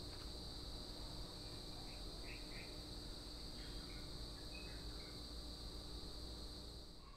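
Steady high-pitched drone of crickets, with a few faint short chirps a couple of seconds in.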